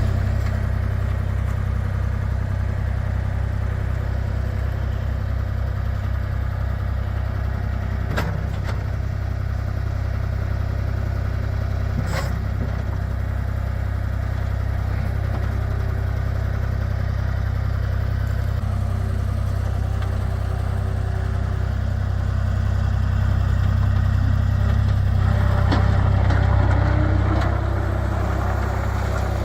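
New Holland L785 skid steer's engine running steadily at idle with a deep low hum, swelling briefly louder about three-quarters of the way through. There are a couple of faint clicks along the way.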